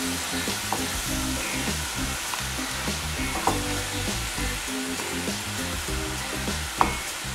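Diced chicken breast sizzling in hot sunflower oil in a frying pan, with a few clicks and scrapes of a plastic spatula as the pieces are scooped out. Soft background music runs underneath.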